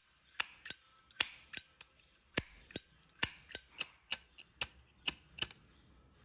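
1964 Zippo lighter's hinged lid being flicked open and snapped shut over and over: about fifteen sharp metallic clicks, many in quick pairs, with a short ringing clink on several. The clicks stop a little before the end.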